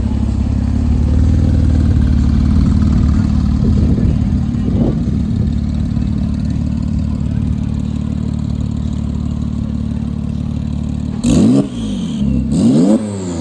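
Porsche 997 Turbo twin-turbo flat-six running steadily, then revved hard twice near the end, the pitch shooting up and dropping each time with a burst of hissing turbo flutter as the throttle closes, and a high falling whistle as the turbos spool down.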